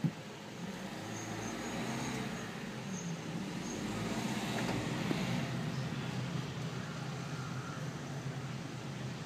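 Car engine and road noise heard from inside a car creeping through town traffic, a steady low hum, with a brief knock right at the start.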